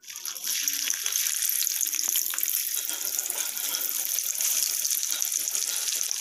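Hot oil with cumin seeds sizzling and crackling steadily in a kadhai as paneer cubes fry. The sizzle starts abruptly.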